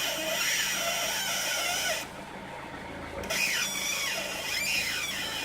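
A car squeaking as the steering is turned slowly, with wavering squeals that rise and fall in pitch. It comes in two stretches with a quieter gap of about a second in the middle.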